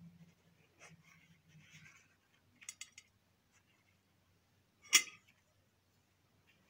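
Faint handling sounds of a bread roll being pulled apart on a plate and a short run of small clicks, then one sharp clink about five seconds in, a metal spoon knocking against a ceramic plate.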